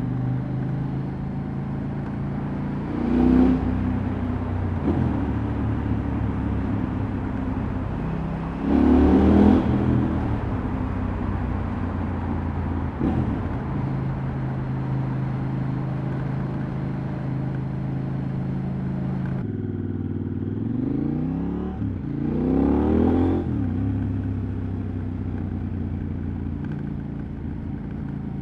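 KTM 790 Adventure's parallel-twin engine running through its exhaust while riding, pulling several rev rises and falls, the strongest about nine seconds in, with steady running between them. About two-thirds of the way through, the sound changes abruptly to a different stretch of riding.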